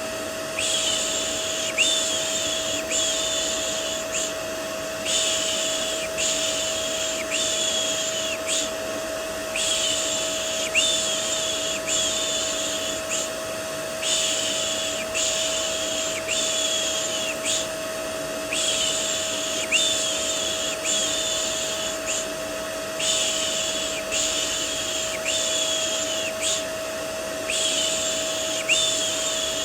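Vacuum cleaner running steadily with a constant motor whine, overlaid with a repeated 'shh' shushing sound for soothing a baby. The shushes come in runs of three to five, about one a second, with short pauses between the runs.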